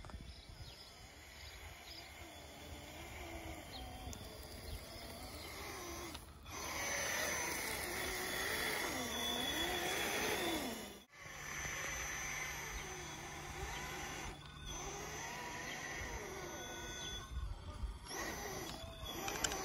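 Electric drive of a Traxxas TRX-4 Sport RC crawler (Holmes Hobbies Revolver brushed motor on a Castle Sidewinder 4 ESC) whining, its pitch rising and falling with the throttle as the truck crawls. The sound breaks off abruptly a few times.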